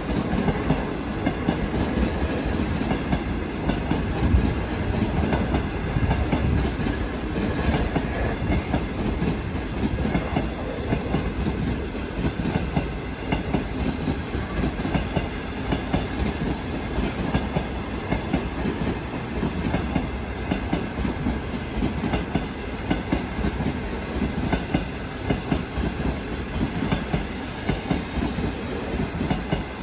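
A train running past steadily, its wheels clattering over the rail joints in a continuous run of clicks.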